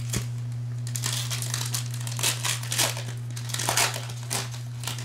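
Plastic wrapper of a trading card pack crinkling in short irregular bursts as it is torn open and handled, over a steady low hum.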